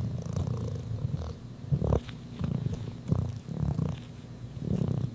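Domestic cat purring close up, the rumble swelling and easing in steady pulses with each breath in and out.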